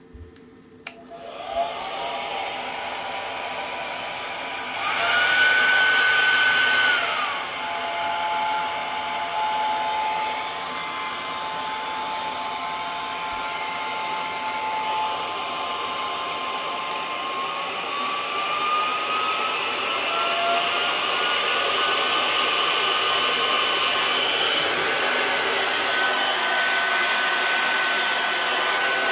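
Remington handheld hair dryer running, its fan whine and airflow shifting as it is switched through its higher speed and heat settings. It starts about a second in and jumps higher and louder for a couple of seconds around five seconds in, then drops back. Later the pitch glides up again and holds steady.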